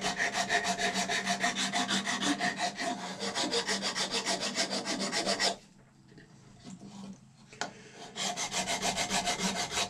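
A hand file scraping back and forth across the base of a cow horn in quick, regular strokes, thinning the thick base down to match the rest of the horn. The strokes stop a little past halfway and start again about two and a half seconds later.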